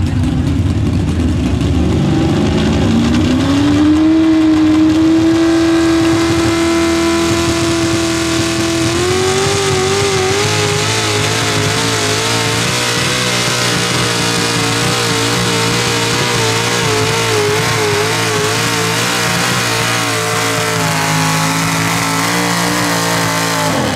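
Hot rod pulling tractor's engine at full throttle dragging the weight sled. The revs climb over the first few seconds and hold steady, then rise again about a third of the way in with the pitch wavering up and down. The sound cuts off suddenly at the end.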